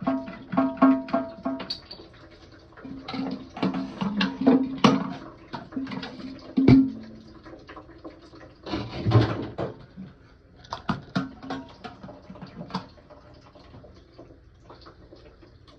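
Knocks, clicks and scraping of plastic toilet-tank parts being handled while an old fill valve is swapped for a new one, with short squeaky tones in the first half and a louder scraping rush about nine seconds in.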